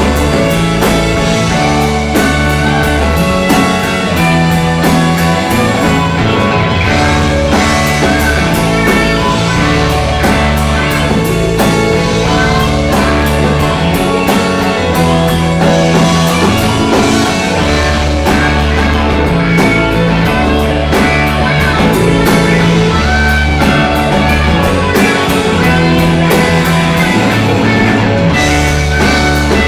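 Live rock band playing loud: electric guitars, bass guitar and drum kit, with the bass notes changing every second or two under a steady drum beat.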